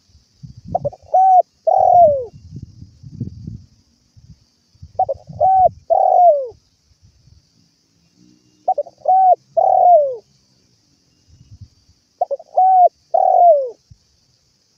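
Spotted dove (tekukur) cooing: four repeated phrases, each a short note followed by two coos, the last coo falling in pitch. Low thuds of noise sit under some of the phrases.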